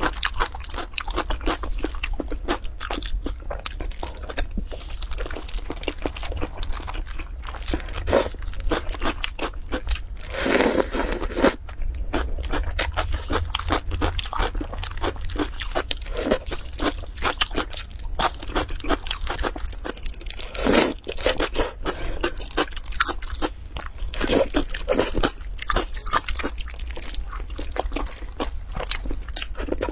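Close-miked mukbang eating sounds: wet chewing and crunching of sauce-marinated eggs, with sauce squelching and plastic gloves crinkling as gloved hands work in the bowl, in a dense run of small clicks and crackles with a few louder bursts. A steady low hum lies under it.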